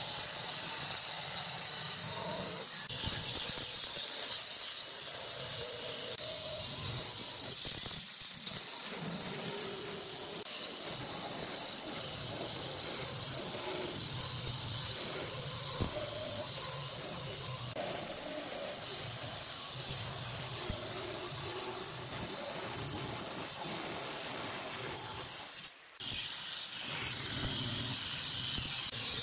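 Handheld electric stone cutter with a diamond blade cutting along a wet granite slab: a steady hissing grind, broken for a split second near the end.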